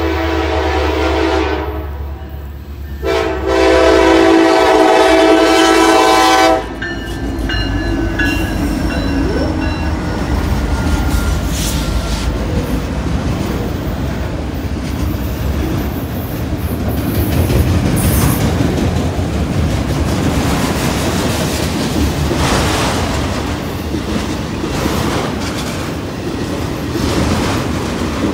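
Norfolk Southern freight locomotive's horn sounding for a road crossing: the tail of one blast, then a long loud blast of about three and a half seconds that cuts off sharply. After it comes the steady rumble and clickety-clack of the locomotives and autorack cars rolling past.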